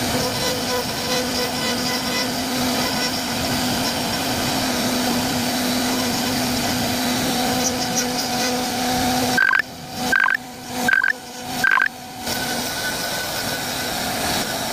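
CNC wood-carving router running with a steady hum. About two-thirds of the way in, four short high beeps come less than a second apart, and the running sound briefly drops away after each one.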